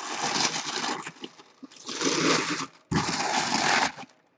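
Packaging being handled, rustling and crinkling in three bursts of about a second each with short pauses between.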